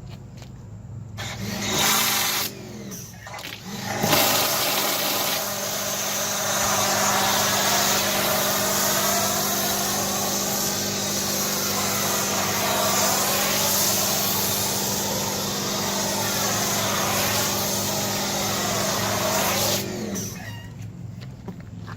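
AR Blue Clean 1900 psi electric pressure washer spraying through a foam cannon. A short burst comes about a second in, then a steady spray over the motor's even hum from about four seconds in, cutting off near the end.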